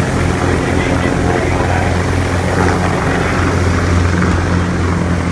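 Helicopter running close by: a steady low drone under a dense rushing noise.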